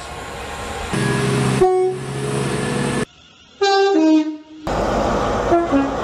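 Several train horns cut together in quick succession. A loud horn sounds over the noise of a passing train from about a second in. After a brief gap comes a two-tone horn stepping down in pitch, then a short two-tone toot over train rumble near the end.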